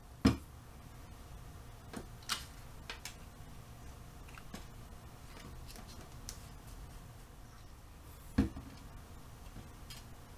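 Scattered light taps and knocks of cardstock pieces and crafting tools being handled and set down on a work surface, with two louder knocks, one just after the start and one about eight seconds in.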